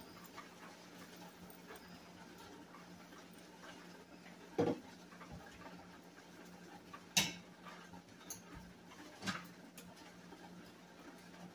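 Quiet kitchen room tone with a low steady hum, broken by three brief knocks in the second half.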